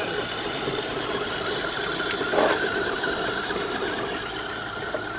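Electric RC trail truck's motor and geared drivetrain whining steadily under load as it drags a weight-pulling sled on a chain over dirt. A short louder noise comes about halfway through.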